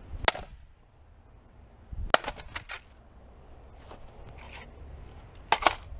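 Sharp metallic clicks and clatter from the chopped optical disk drive's sheet-metal case being handled and moved: one hard click near the start, a quick run of clicks about two seconds in, and a close pair near the end.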